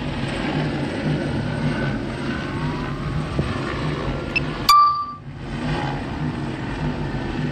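Steady outdoor traffic and street noise with a low hum. About two-thirds of the way in, a short high electronic beep sounds: the drone controller app's record-start tone. The audio drops out for a moment right after it.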